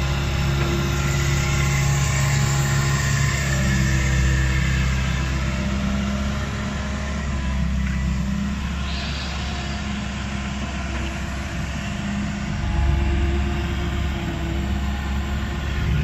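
Komatsu PC160LC hydraulic excavator's diesel engine running steadily under load as the arm raises and swings a loaded bucket; the engine note swells about three quarters of the way through.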